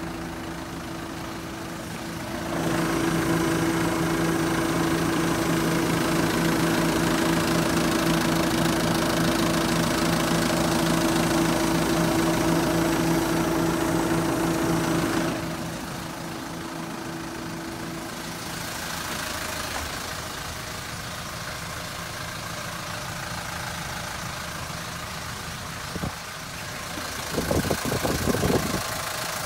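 Mitsubishi Rosa bus's 4D34 four-cylinder diesel engine idling steadily, louder for about thirteen seconds from a couple of seconds in, then quieter. Near the end come a click and a brief run of knocks.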